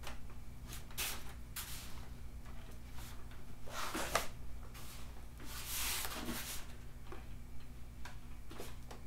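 Scattered rustles and light clicks from handling parts and packaging in the box of a mini-split indoor unit, the longest rustles about four and six seconds in, over a steady low hum.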